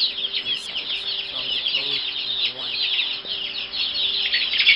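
A brood of chicks peeping all at once: a dense, continuous chorus of high, overlapping cheeps, each sliding downward in pitch.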